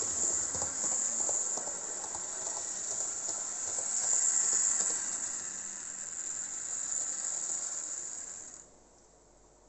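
HO-scale model railcar running on the layout's track, its small electric motor giving a steady high hiss with light clicking from the wheels, until it stops about eight and a half seconds in.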